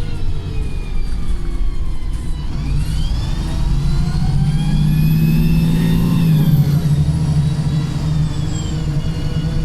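Wright Pulsar single-deck bus under way, engine droning beneath a loud gearbox and differential whine that rises in pitch as the bus accelerates for a few seconds, then falls away again.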